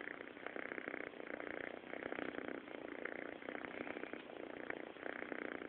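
Domestic cat snoring: a fluttering rasp that swells and eases with each breath, about every three-quarters of a second.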